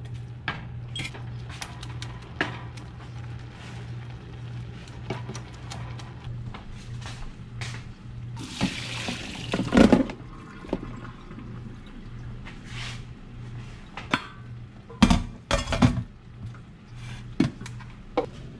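A wooden spoon scraping and clicking in a skillet of vegetables. About halfway through, water pours off boiled potatoes from a stainless steel pot into a plastic colander in a metal sink, and a few seconds later the potatoes clunk back into the pot.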